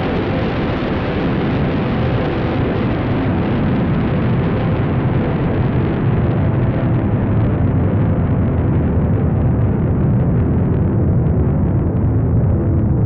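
Synthesized cinematic riser sound effect: a dense rushing, rumbling noise that slowly swells louder as its low rumble builds and its bright top end gradually closes down.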